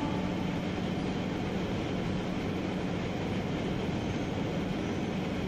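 Steady city street ambience: an even rumble of traffic and people, with no voice.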